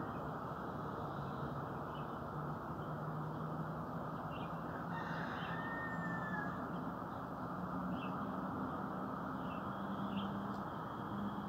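Outdoor dawn ambience: a steady noisy wash with a low drone that drifts in pitch, scattered short bird chirps, and one longer, harsher bird call about five seconds in.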